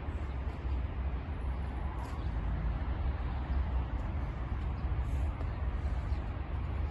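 Outdoor ambience: a steady low rumble with a faint even hiss above it and a few soft, scattered ticks.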